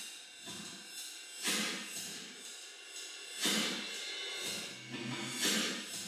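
Drum-kit recording played backwards: reversed cymbal, hi-hat and drum hits swelling in soft washes about once a second.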